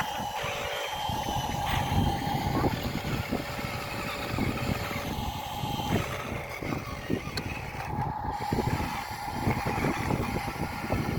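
Small electric motor of a radio-controlled toy vehicle whining steadily over a low rumble. The whine shifts to a lower pitch about three seconds in and returns near its first pitch about eight seconds in.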